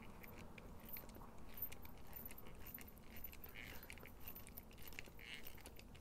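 Faint, irregular small clicks and ticks of a bit driver turning a screw in a G10-handled linerlock folding knife during reassembly.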